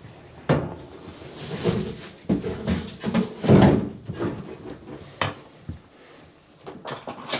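Irregular knocks, clunks and scraping from hands working a dryer vent hose onto its fitting behind the dryer and tightening the connection, with a couple of sharper knocks near the end.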